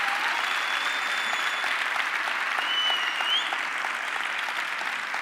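Audience applauding, with a couple of high whistles cutting through. The applause eases slightly near the end.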